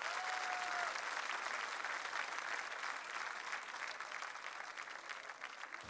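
Studio audience applauding, slowly thinning out, with one short held high note rising over the clapping in the first second.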